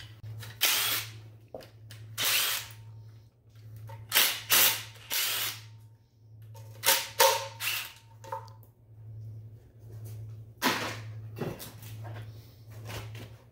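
Cordless impact driver with a socket hammering bolts loose on an engine's bottom end, in about a dozen short bursts, some coming in quick runs of three.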